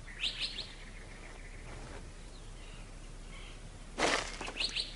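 Harris's hawk moving on the ground among prickly pear: a brief rustle of wings about four seconds in, with a few short high chirps near the start and just after the rustle, over faint outdoor background.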